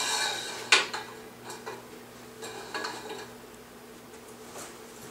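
Metal stand parts knocking and clicking as a pole is slid into a metal support tube: one sharp click about a second in, then a few fainter taps.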